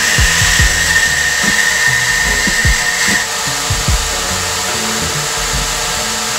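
Combination belt and disc sander running while a steel damascus knife blade is ground against the belt, a steady hissing whine with a high tone that fades about three seconds in. Background music with a low beat plays underneath.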